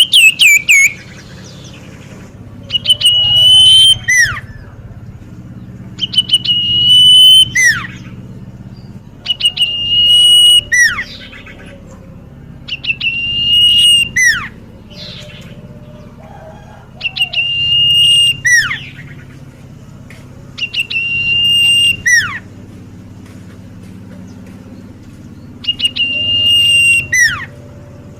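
Common iora (cipoh) singing loudly. The same whistled phrase repeats about eight times, one every three to four seconds: a held, steady whistle that ends in a quick falling note.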